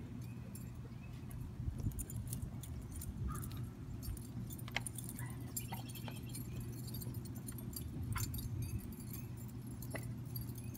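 Dog collar tags jingling in scattered light clicks as a dog noses and mouths a ball across the lawn, over a steady low rumble; a few faint high chirps.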